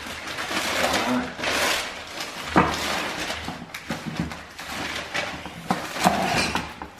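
Tissue paper rustling and crinkling as a gift box is unwrapped and handled, with a sharp knock about two and a half seconds in.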